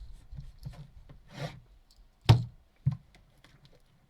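Cards and packaging handled on a table: light rubbing and small clicks, a brief sliding rustle, then a sharp knock a little over two seconds in and a smaller knock just after.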